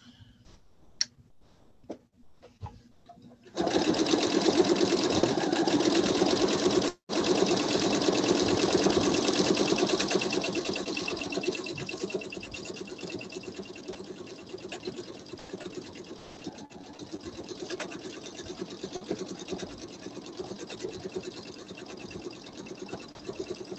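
Pfaff sewing machine stitching fast for free-motion quilting through the quilt's layers, starting a few seconds in after some light handling clicks. It stops for an instant partway, then runs on, quieter from about ten seconds in.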